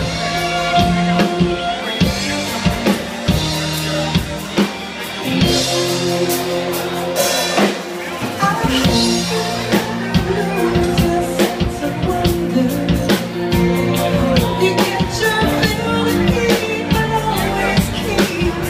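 Music with a steady drum-kit beat, playing for a dance.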